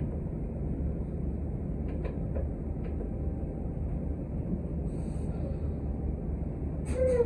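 Inside a city transit bus on the move: a steady low rumble from the engine and road, with a few light clicks and rattles. Near the end there is a louder clatter with a brief squeak.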